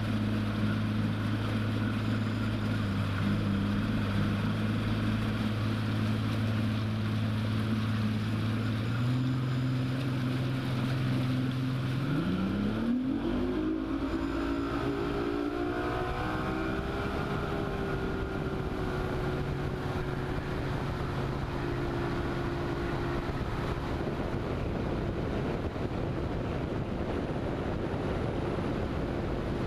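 Bass boat's outboard motor running steadily at low speed, then throttled up about twelve seconds in, its pitch rising quickly as the boat accelerates. It then holds a steady higher pitch, with wind and water rushing past.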